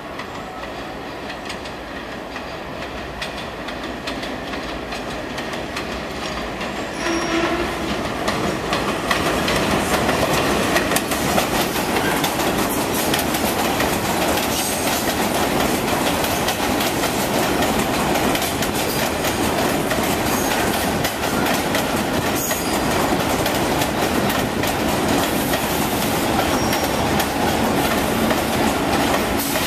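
R46 subway train arriving on an elevated line, its wheels clacking over the rail joints. It grows louder about seven seconds in as it reaches the platform, then runs on steadily as it pulls slowly through the station.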